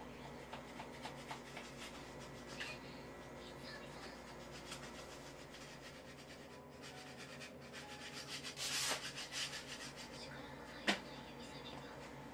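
Hand tools scraping and rubbing on a painted wall as it is prepared for repainting. Scattered light scrapes and taps, a louder stretch of rubbing about eight and a half seconds in, and a sharp click near eleven seconds.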